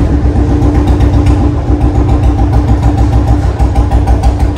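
Royal Enfield Bullet's single-cylinder engine idling with a steady, evenly pulsing low thump.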